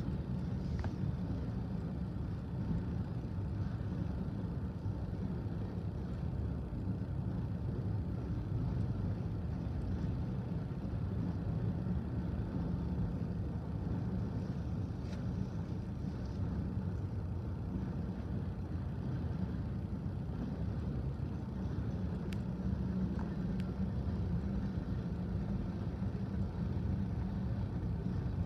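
Freight train of autorack and tank cars rolling past a level crossing, a steady low rumble heard from inside a car.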